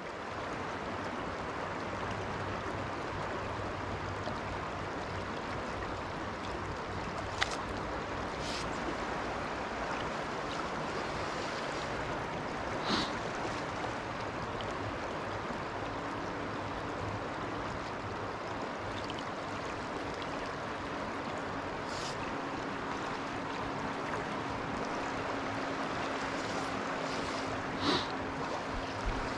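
The Little Juniata River's current rushing steadily over its riffles, with a few brief faint clicks now and then.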